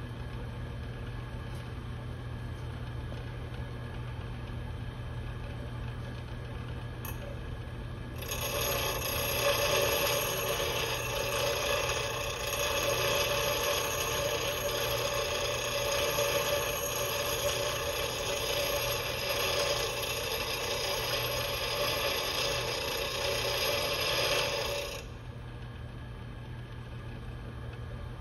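Bench grinder motor running with a steady hum. About eight seconds in, a cold chisel is pressed to the grinding wheel and the steel grinds loudly for about seventeen seconds as its bevel is ground in, then lifts off, leaving only the hum.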